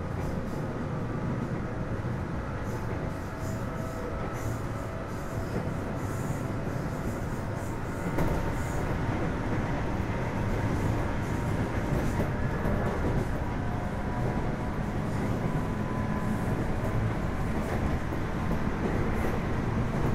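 Running noise inside a JR East 205 series electric motor car under way between stations: a steady rumble of wheels on rail with the hum of its DC traction motors and gears. It gets louder about eight seconds in.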